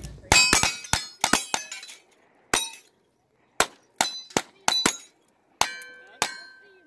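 Revolver shots fired by two shooters, mixed with the clang of bullets hitting steel targets, which ring on after the hits. A quick cluster of shots in the first second and a half, then shots at irregular intervals.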